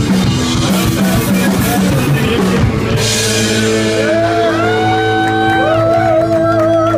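Live rock band with electric guitar, bass and drum kit playing loudly. About three seconds in, the drumming drops away and a held chord rings on, with high notes sliding up and down over it.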